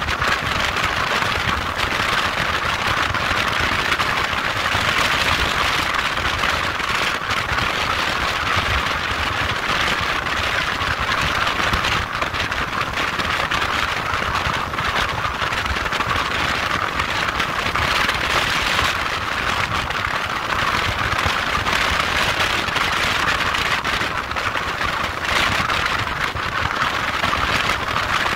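A motorcycle under way: the engine running steadily under a constant rushing noise of wind and road.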